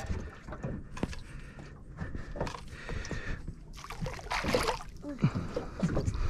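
Water sloshing and splashing at the side of a small boat as a hooked squid is brought up and netted, with a louder burst of splashing near four seconds in.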